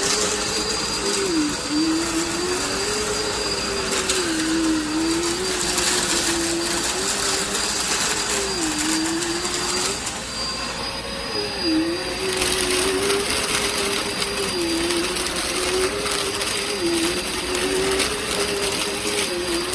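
Dirt Devil Endura Lite upright vacuum cleaner running, a steady motor hum over a rushing hiss, its pitch sagging briefly every few seconds and recovering.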